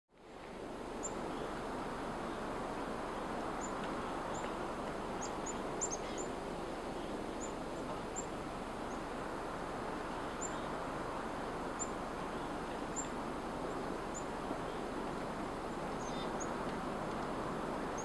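Outdoor nature ambience: a steady rushing background noise that fades in at the start, with small birds giving short, very high, thin chirps scattered irregularly throughout.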